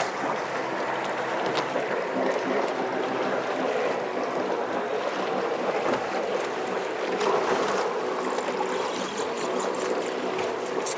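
Steady wash of water and wind around a fishing boat on the lake.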